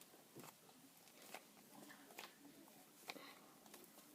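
Near silence, with a few faint soft ticks and rustles from hands handling a soft clay slime.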